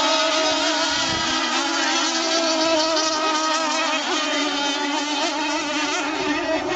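Several radio-controlled racing boats running flat out, their small motors making an overlapping high-pitched buzz whose pitches waver as the boats turn and pass.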